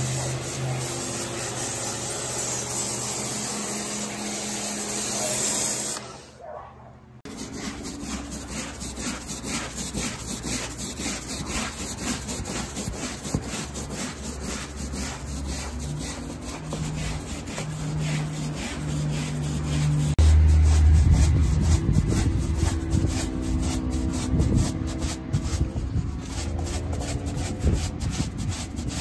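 A stiff-bristled push broom scrubbing degreaser-soaked car carpet and floor mats in rapid back-and-forth strokes. Before that, during the first six seconds, a pressure-washer gun gives a steady spraying hiss, which cuts out briefly before the scrubbing starts.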